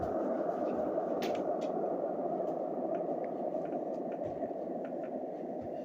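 A steady rushing noise that slowly fades, with a few faint clicks.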